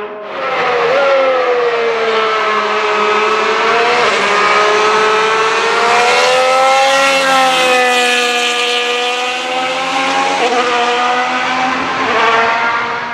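Red Bull Ford 1.6-litre turbocharged V6 hybrid power unit of the 2026 Racing Bulls VCARB03 Formula 1 car at high revs. The engine note climbs slowly and falls again, with a few brief breaks at gear changes.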